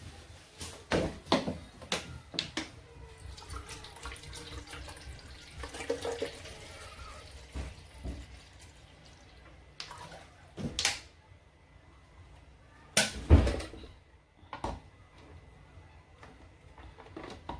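Water running into the small plastic water tank of a Dolce Gusto Mini coffee machine, with several clicks and knocks as the tank is handled. The loudest knock comes a little past the middle.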